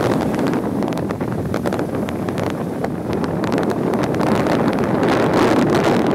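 Wind buffeting the microphone: a loud, steady rush of noise, heaviest in the low range, with many small crackles scattered through it.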